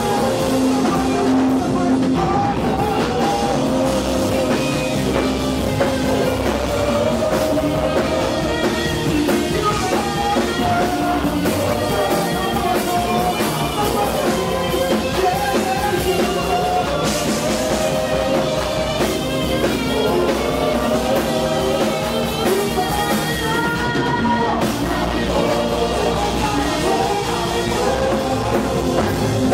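Live gospel worship music: a praise team of singers on microphones singing together over a band with drums, played through the hall's PA.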